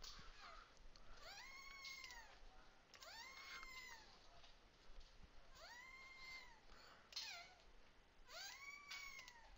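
A cat meowing faintly about five times, each meow rising and then falling in pitch.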